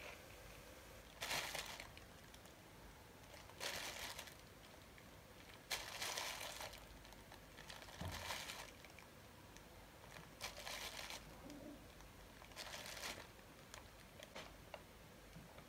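Parchment (baking) paper rustling in short crinkly bursts, about six of them every two seconds or so, as a hand reaches over it placing green olive slices on a pizza.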